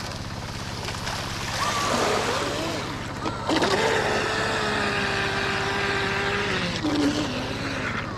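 Radio-controlled speedboat running fast across the water, its motor whine over the hiss of its wake. The whine rises a little under two seconds in, holds steady, then drops in pitch near the end as the boat slows. A steady low hum runs underneath.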